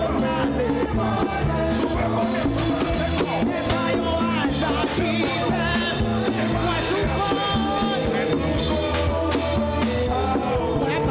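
Live church band music with singing: drums keeping a steady upbeat rhythm under instruments and voices.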